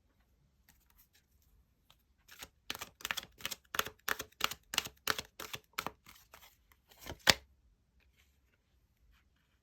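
Tarot cards being shuffled by hand: a run of quick papery strokes, about two a second, ending in one louder snap of the deck.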